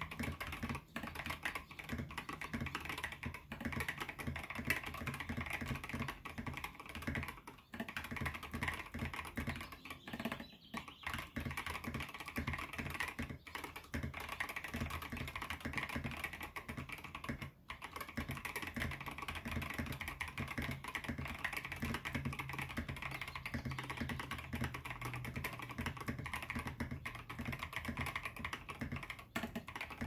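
Fast continuous typing on a Discipline 65 custom mechanical keyboard with Boba U4T tactile switches lubed with Tribosys 3204, a POM plate and high-profile SA keycaps: a dense stream of keystrokes, with brief lulls about 8, 10 and 18 seconds in.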